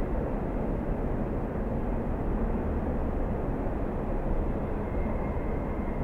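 Steam train running steadily: a continuous rumble of the train on the track, with no distinct beat. About five seconds in, a faint steady high tone comes in.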